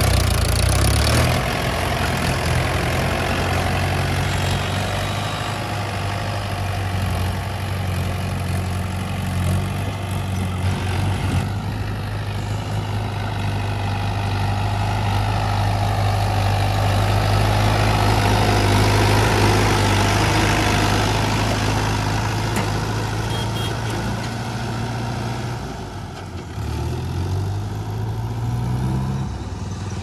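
Mahindra Yuvo 475 DI tractor's diesel engine running steadily under load as it pulls a loaded trolley. Near the end the sound dips, then an engine note rises.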